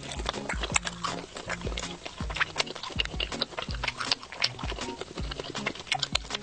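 Close-miked chewing of a beef ball: a run of wet mouth clicks with a low thump about twice a second, over soft background music.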